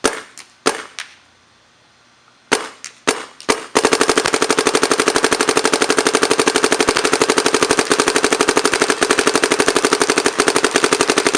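Damage DM11 electronic paintball marker firing: a few single shots, then a few seconds in a long, fast, evenly spaced string of rapid fire.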